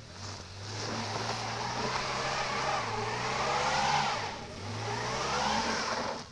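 Holden Commodore engine revving hard through a skid on gravel, wheels spinning with a loud hiss. The engine pitch climbs, drops about four seconds in, climbs again, then cuts off near the end.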